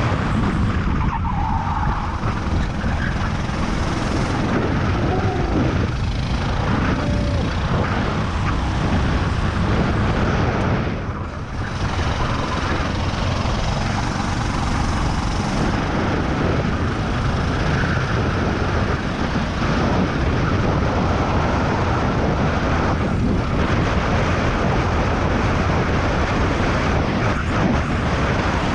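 Onboard sound of a racing kart's engine running hard at racing speed. It eases briefly about eleven seconds in as the kart slows for a corner, then builds again as it accelerates.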